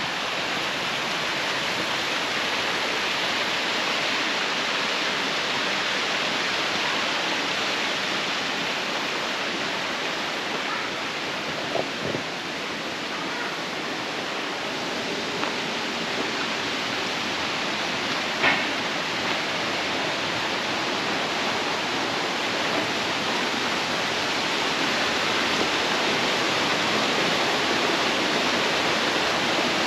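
Waterfall rushing steadily, a dense even roar of falling water, with a faint tick or two partway through.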